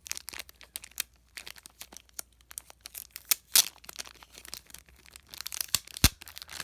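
Packaging being torn open and handled, a run of irregular crackles and rips with a louder rip about three and a half seconds in and a soft thump near the end.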